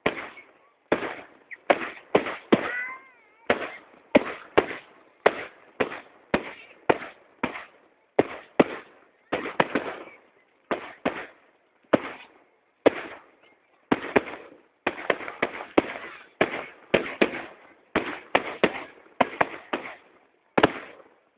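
Aerial firework shells bursting in a rapid, irregular series of loud bangs, about two a second, each trailing off briefly.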